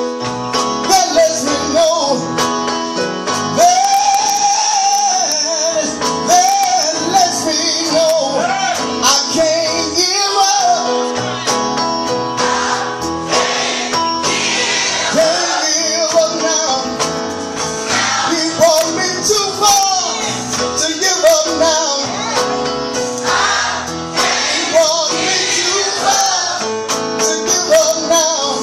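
Live gospel music: a man sings lead through a microphone, with other voices and instruments backing him in a steady, continuous performance.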